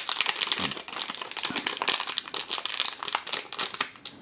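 Clear plastic packaging bag crinkling as hands pull it open and take a small circuit board out of it. The crackling is dense and irregular.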